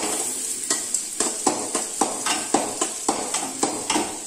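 A metal spatula scraping and stirring chopped onions in an aluminium kadai, about four strokes a second, over a steady sizzle of the onions frying in oil. The stirring stops near the end, leaving the sizzle.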